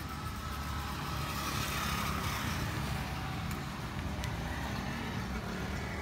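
A motor vehicle's engine running steadily, with road traffic noise that swells about two seconds in.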